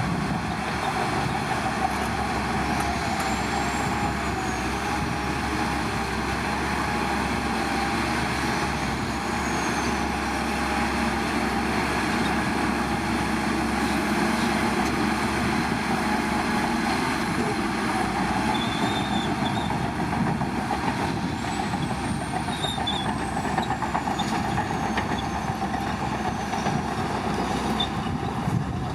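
Diesel engine of heavy earth-moving machinery running steadily under load, with a wavering mechanical whine. A few faint high squeals rise and fall over it.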